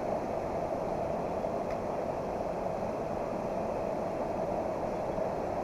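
Fast-flowing mountain stream running high after rain, a steady rushing of water.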